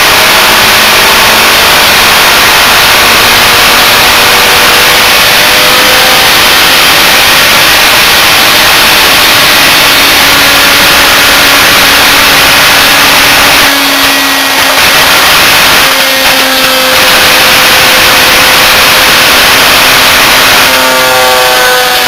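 Series-wound washing-machine universal motor, driven from a microwave oven transformer, running flat out at extreme speed with its brushes arcing: a loud harsh whine and crackle. Its pitch drifts, and near the end it drops as heavier sparking sets in.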